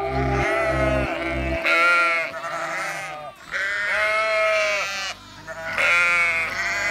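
Sheep bleating: several long calls one after another, some overlapping.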